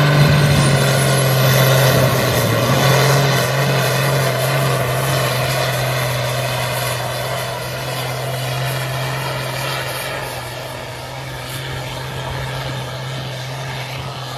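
Diesel tractor engine running flat out under heavy load as it drags a tractor-pull sled, a loud, steady, deep drone that slowly fades as the tractor pulls away. A thin high whine climbs in pitch over the first couple of seconds.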